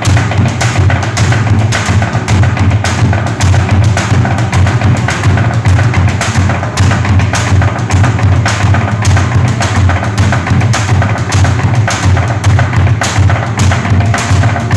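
Bedug, a large Indonesian mosque drum, beaten loudly in a fast, steady rhythm of deep drum strokes mixed with sharp wooden knocks.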